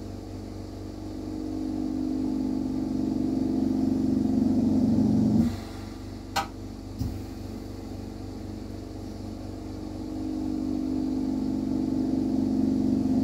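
A workshop machine hum that swells for a few seconds and then cuts off abruptly, twice, over a steady background hum, with one sharp click in between.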